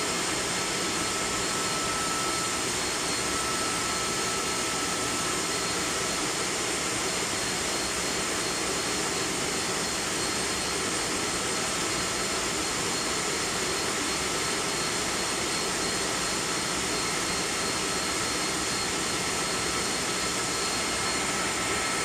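Industrial plant machinery running steadily: an even roar with a few thin, steady high-pitched whines over it.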